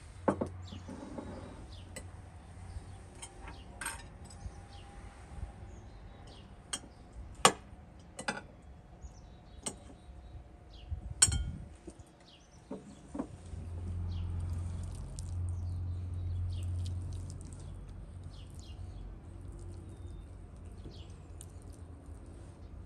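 Metal cutlery clinking and scraping on ceramic plates, a series of separate sharp clinks, while small birds chirp in the background. A low rumble swells for a few seconds past the middle.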